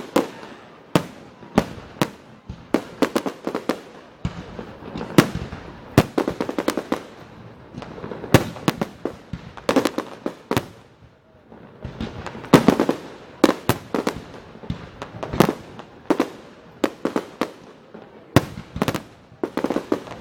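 Fireworks display: aerial shells bursting in a steady run of sharp bangs, some in rapid clusters of crackling reports, each followed by an echoing rumble.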